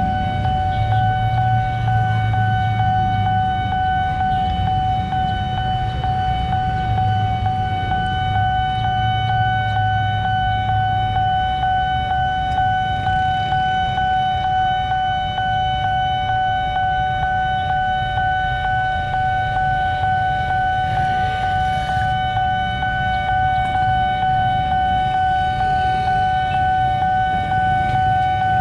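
Railway level-crossing warning alarm sounding one steady, unbroken tone, over the low rumble of road traffic.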